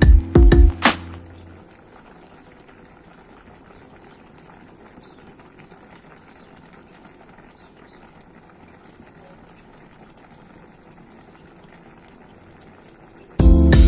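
A pan of fish stew simmering on a gas stove, a faint, even bubbling. Background music plays for the first second and a half and returns near the end.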